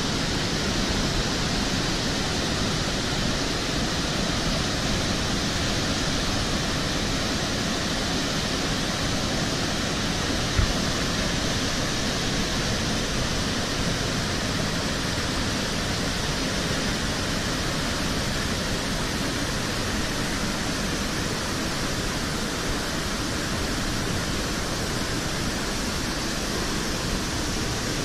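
Large waterfall: a steady, even rush of heavy falling water. A single brief low thump sounds about ten seconds in.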